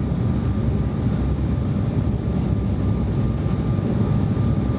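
Steady cabin noise of an Embraer E175 airliner descending on approach to land: the rumble of its GE CF34 turbofan engines and the rush of air over the fuselage, heaviest in the low end, with a faint steady whine above it.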